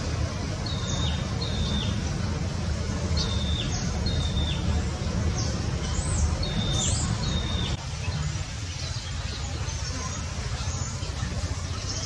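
Short high chirping calls repeating about once a second, often in pairs, over a steady low rumble that eases off about eight seconds in.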